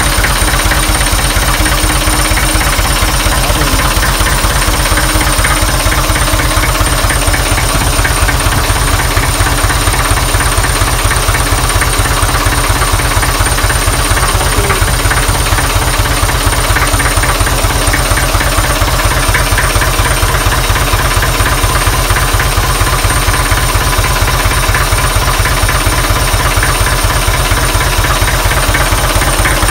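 Isuzu 4BA1 four-cylinder diesel engine running at a steady speed, with an even diesel firing rhythm. It is direct-coupled to a two-stage water pump.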